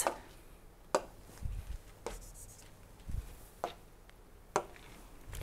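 Stylus clicking and tapping on a pen tablet while selecting the eraser and writing: a few separate sharp clicks about a second apart, with soft low bumps between them.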